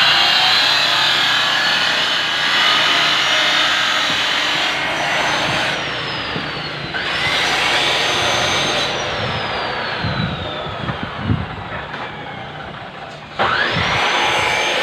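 A high-speed electric power tool at work. Its motor whines up to speed about seven seconds in, runs, then is switched off and winds down with a slowly falling whine. A few low knocks come while it slows, and near the end it starts again with a sharp rising whine.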